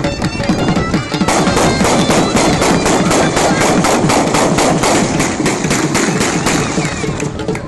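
Traditional folk music: a reed pipe over a fast, steady drum beat of about six strokes a second, which comes in strongly about a second in.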